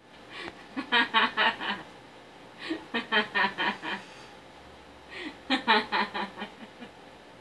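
A woman laughing into a paper bag held to her face: three bursts of laughter, each a quick run of ha-ha pulses.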